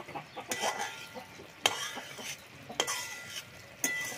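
Spatula stirring food frying in a wok, knocking and scraping against the pan about once a second over a light sizzle of hot oil.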